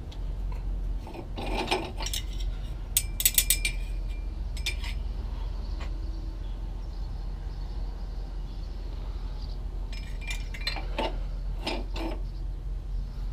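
Metal clinks and rattles from hands working among the parts in the engine bay of a John Deere 8600i forage harvester: a quick run of clinks about three seconds in and scattered clicks near the end, over a steady low hum.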